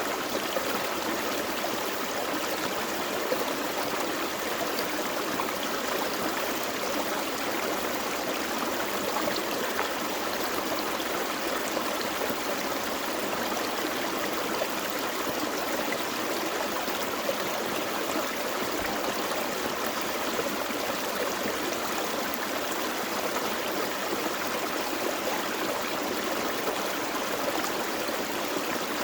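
Small forest creek flowing over rocks, a steady rush and gurgle of water.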